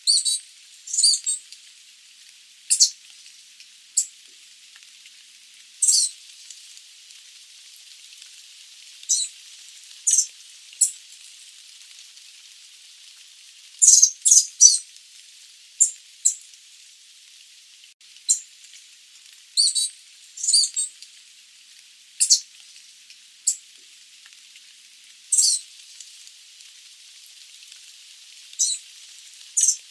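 Sooty babbler giving short, high-pitched calls every second or two, some in quick pairs or threes, over a faint hiss.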